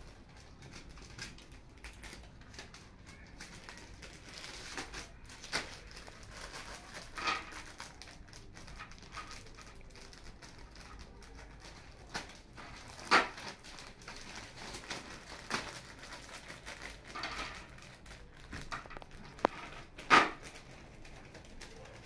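Bundles of incense sticks clicking and rattling as they are handled and slid into thin plastic bags, with plastic crinkling between. A few sharper clacks stand out, the loudest about two-thirds of the way through and near the end.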